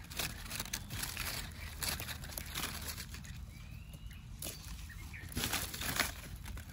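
Rustling and light crackling of dry leaves and twigs, in short irregular bursts, as a hand plucks mushrooms from a rotting log and brushes the plants around it.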